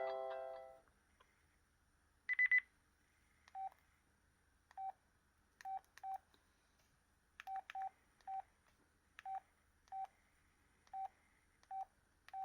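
Samsung SCH-A870 cell phone key beeps: about a dozen short, single-pitch keypress tones at irregular intervals, typical of stepping through the phone's ringtone menu. Before them, a ringtone melody fades out in the first second, and a short, higher triple beep sounds about two seconds in.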